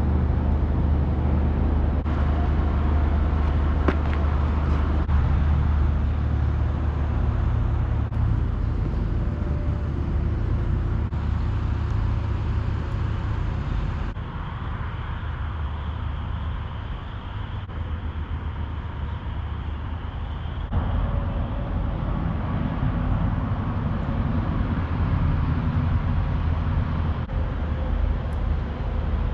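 Steady low rumble of motor-vehicle road noise. The sound changes abruptly twice, about halfway through and again about two-thirds through.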